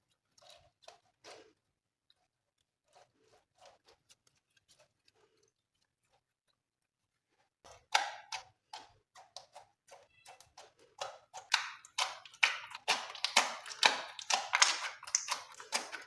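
Glossy slime being squished and mixed by hand: wet, sticky clicks and pops, sparse and faint at first, then a dense, louder crackling run from about halfway through.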